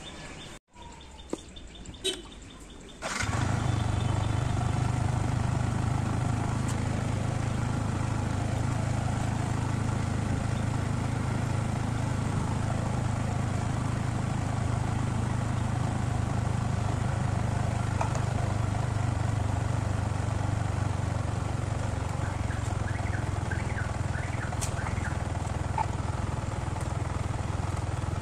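Yamaha MT-15's single-cylinder engine idling steadily, starting about three seconds in. It is being run after the coolant refill to work the trapped air out of the cooling system.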